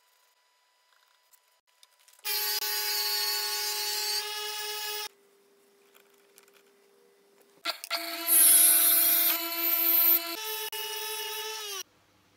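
Electric power tool motor whining in two runs, one of about three seconds and one of about four. The second run shifts pitch a few times and sags as it stops.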